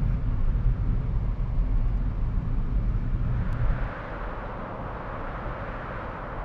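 A car driving on the road: a low engine and road rumble that drops away about four seconds in, leaving a quieter steady rushing hiss.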